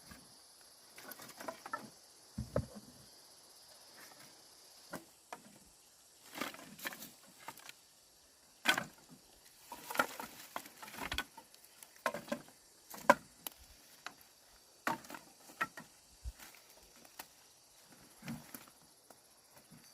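Irregular knocks, taps and rustles of handling, the sharpest about 9 and 13 seconds in, over a steady high chirr of insects that fades about five seconds in.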